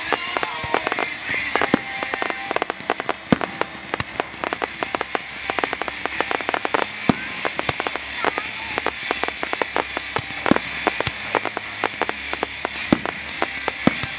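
Aerial fireworks shells bursting in quick succession: a dense, continuous run of sharp pops and crackles, with a few louder bangs standing out.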